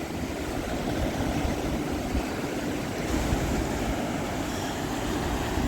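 Wind buffeting the microphone outdoors: a steady rushing noise with low, uneven rumbling gusts and no distinct event.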